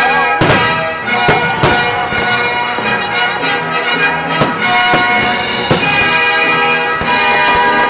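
Loud music playing through a fireworks display, with several sharp firework bangs cutting through it at irregular intervals.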